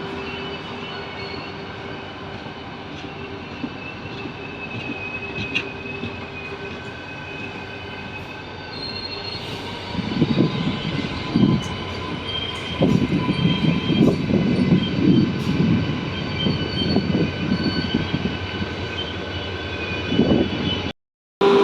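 Train running on the rails, with steady high wheel-squeal tones over the running noise. From about halfway through, an uneven, louder low rumbling joins in. The sound cuts out briefly near the end.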